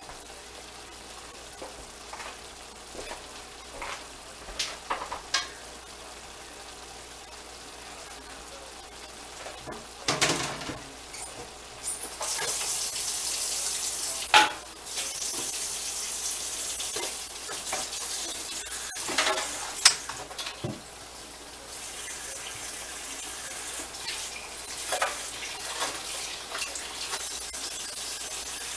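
Ground beef frying in a pan: a sizzle that comes up about twelve seconds in and then holds steady, with clinks, knocks and scrapes of a spoon stirring against the pan.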